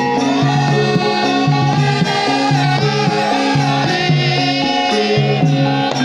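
Javanese gamelan playing Lengger music: metallophones ring out steady, repeating melodic notes over a regular low-note pattern, while a sindhen, a female solo singer, sings gliding vocal lines over it.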